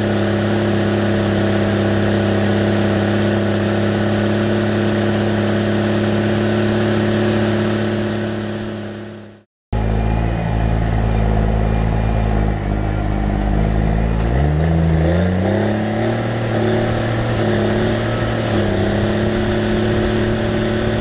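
Case IH MX 150 tractor's six-cylinder diesel engine running steadily while pulling a disc harrow. It cuts off suddenly about halfway through, then comes back and speeds up, rising in pitch over a couple of seconds, before running steady again.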